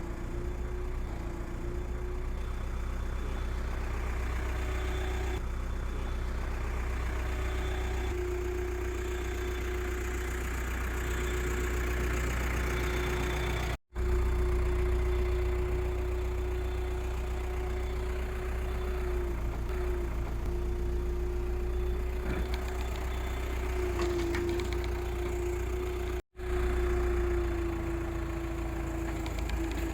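Hydraulic excavator's diesel engine running steadily while being operated: a low rumble under a steady hum that wavers slightly now and then. The sound cuts out for an instant twice, about halfway through and near the end.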